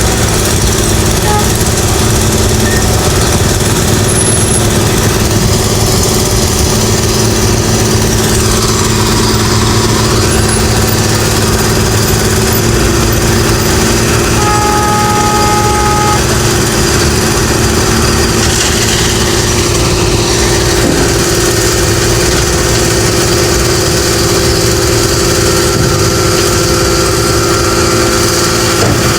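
Engines of road construction machinery and traffic running steadily at a constant pitch, with a brief steady horn-like tone about halfway through.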